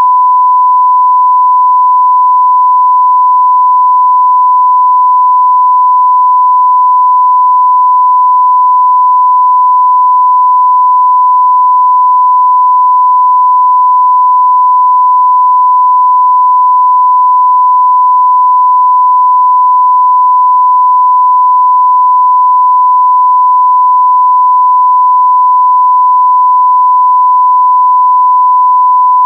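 A loud, steady electronic beep tone: one pure high-pitched note held unbroken, with no other sound.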